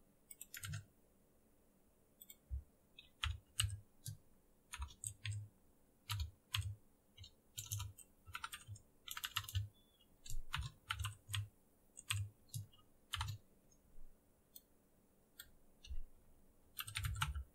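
Typing on a computer keyboard: irregular keystrokes in short runs with brief pauses, and a quick flurry of keys near the end.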